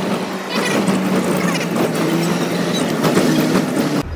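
Motor vehicle running along a hilly road, heard from on board: steady engine and road noise with a low engine tone that shifts in pitch. Near the end the sound changes abruptly to a deeper low rumble.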